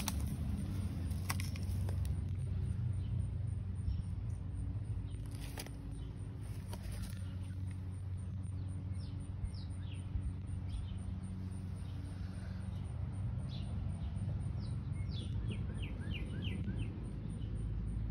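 Outdoor ambience: a steady low rumble, with birds chirping in the second half, including a quick run of short falling chirps near the end.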